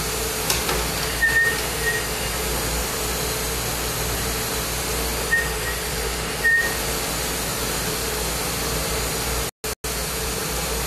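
Glassblowing bench torch burning with a steady hiss, with a steady hum beneath it and a few very short high chirps. The sound drops out twice, briefly, near the end.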